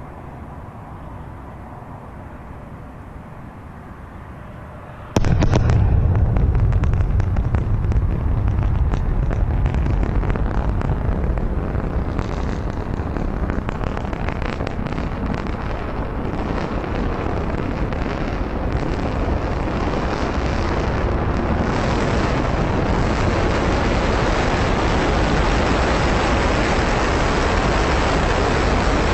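Falcon 9 first-stage booster's rocket engine during its landing burn: a loud, deep crackling rumble that starts abruptly about five seconds in and carries on steadily.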